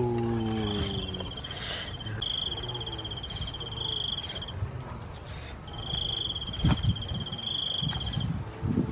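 An insect trills in a high, rapidly pulsed buzz, in three stretches of about two seconds each with short gaps between. At the start a falling, chime-like tone fades out, and a few light knocks and rustles come from handling near the fire.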